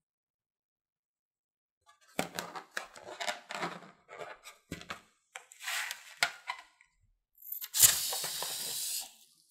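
A slime-filled rubber balloon being squeezed and handled: bursts of crackly squishing and rubbing of the rubber against the fingers. Near the end comes a sharp snap, followed by about a second of steady, hissy rasping.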